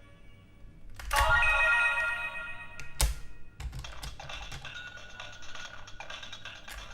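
Electronic chime and sound effects from a Digimon AppliDrive toy's speaker as it reads an Appmon chip. A bright ringing tone starts about a second in and fades, a sharp click comes about three seconds in, and scattered clicks follow.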